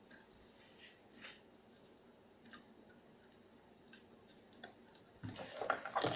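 Faint, scattered small clicks and taps from handling a new USB microphone and its cable, with a louder flurry of clicking and rustling near the end.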